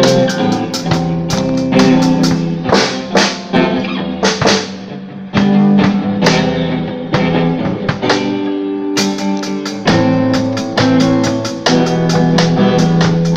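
Live band playing: guitar chords and notes with a drum kit.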